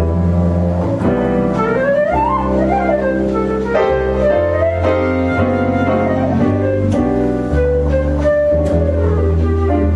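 Acoustic jazz trio: a flute plays a melodic solo line with glides and bends over piano chords and plucked double bass notes.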